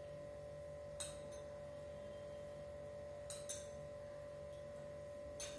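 A few light clinks of a metal spoon against a small steel measuring jigger as lime juice is spooned into it, over a steady faint hum.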